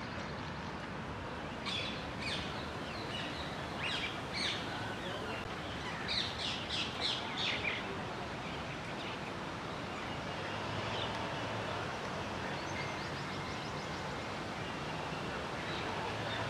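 Quick series of short, high-pitched chirps in three bursts, about two seconds in, around four seconds, and from about six to eight seconds in, over a steady outdoor background hiss.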